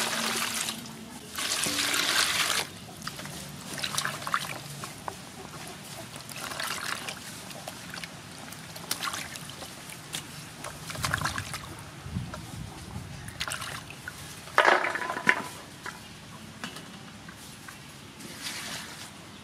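Water poured into an aluminium basin of herbs and vegetables, twice in quick succession, then hands swishing and washing the vegetables in the water, with a louder splash partway through and another pour of water from a plastic bowl near the end.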